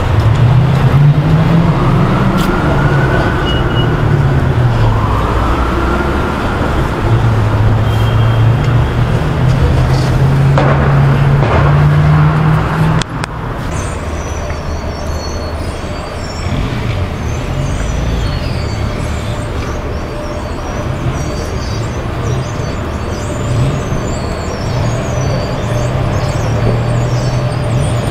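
City traffic: motor vehicle engines running and passing close by, with a rising and falling whine a few seconds in. About 13 seconds in the sound cuts to quieter, steadier traffic with faint high chirping above it.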